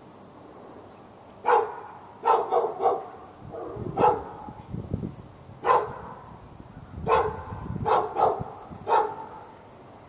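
A dog barking over and over: sharp single barks and quick runs of two or three, about ten in all, at irregular intervals.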